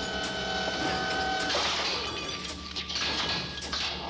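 Cartoon sound effects of a robotic claw arm working over a chute: a steady mechanical hum, then a louder clattering, rattling noise with short knocks from about a second and a half in.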